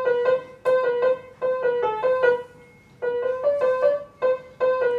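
Piano playing a lively, dance-like tune: short runs of quick notes circling one repeated note, breaking off briefly between phrases.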